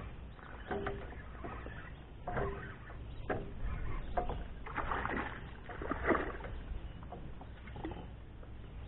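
Water sloshing and splashing around a fishing kayak in irregular bursts, over a steady low rumble.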